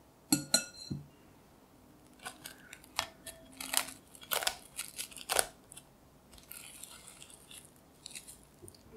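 A metal mesh strainer is set down in a glass bowl with a short ringing clink, then a second lighter knock. Plastic cling film is then pulled out and torn off with crackling, and crinkles as it is stretched and pressed over the rim of a glass bowl.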